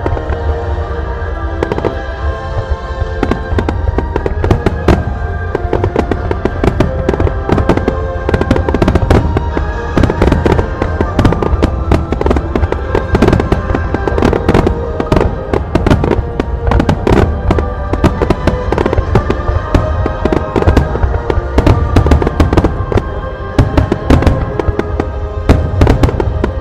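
Starmine fireworks barrage: a dense, rapid run of shell launches and bursts, cracking and booming many times a second, with music playing underneath.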